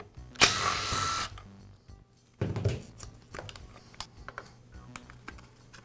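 Screwdriver and plastic clicks, scrapes and knocks as the top cover is unscrewed from an Echo string trimmer's engine, with a loud noisy burst lasting just under a second about half a second in and a dull thump about two and a half seconds in. Faint background music underneath.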